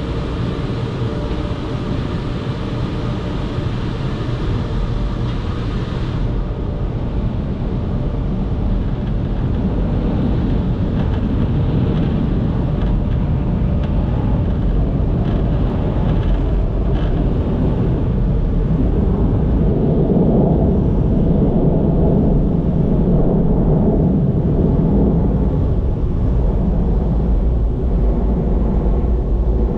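Superior Tempest car wash dryers blowing, a steady loud rush of air with a low rumble, heard from inside the car.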